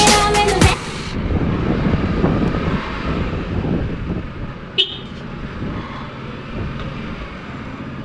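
Low steady vehicle and traffic noise, with a single short horn toot about five seconds in.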